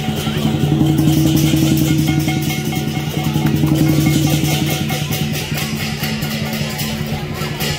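Lion dance percussion ensemble of drum, cymbals and gong playing a fast, steady beat, about six strokes a second, over a low ringing tone.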